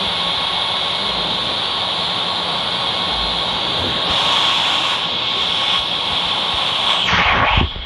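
Jet airliner engine noise: a steady rushing hiss with a thin constant whine. It surges briefly about seven seconds in, then falls away.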